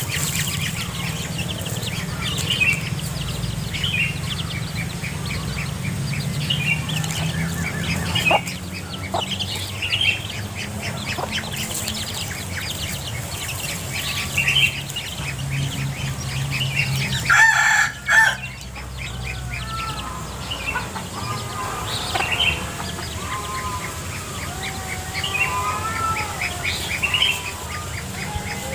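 Mother hen clucking and her chicks cheeping as they forage through dry leaf litter, with short calls repeating throughout. A brief louder burst comes about two-thirds of the way through.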